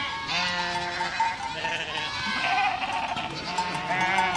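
Goats bleating: several wavering calls, one after another and partly overlapping.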